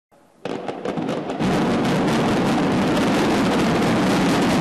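Demolition charges detonating in rapid sequence along a reinforced concrete viaduct. A rattle of many sharp blasts starts about half a second in and thickens about a second later into a continuous rolling rumble.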